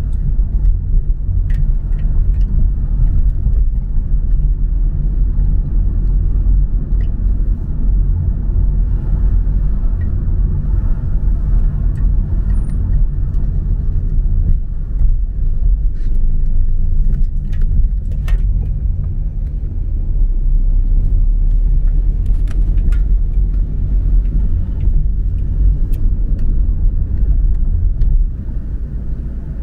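Steady low rumble of a car driving slowly along a street, its road and engine noise picked up from the car itself, with a few faint clicks. It eases off slightly just before the end.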